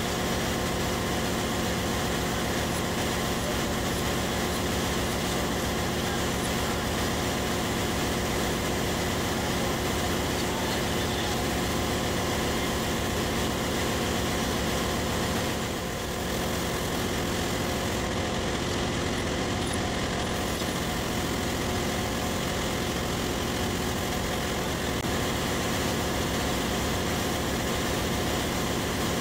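Steady drone of ship's engine-room machinery running, a dense hum of many steady tones, dipping slightly for a moment about halfway through.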